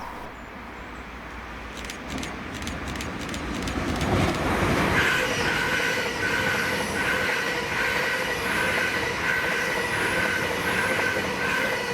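Class 800 Azuma train, unit 800 107, approaching and passing, its rumble growing louder about four seconds in. From about five seconds a high tone pulses at a regular beat over the running noise.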